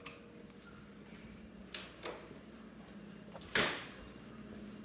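A household door being handled: a light click about two seconds in, then a louder knock about three and a half seconds in, over a faint steady hum.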